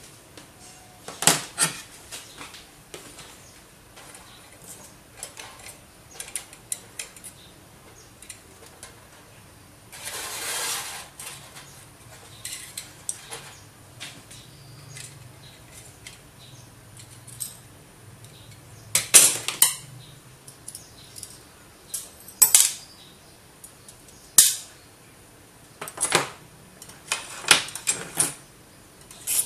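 Irregular sharp metallic clinks and taps, with a scrape lasting about a second roughly ten seconds in, as ceramic processors and their metal caps are handled on a steel plate heated to loosen the solder under the caps.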